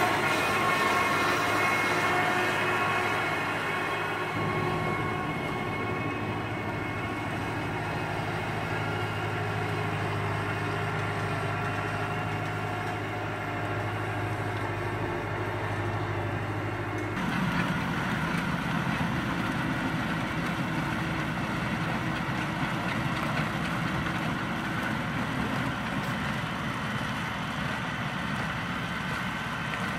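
A tractor and its manure spreader running steadily on the move, an even engine hum with steady tones above it. Just past halfway the sound changes abruptly to a rougher, noisier running sound.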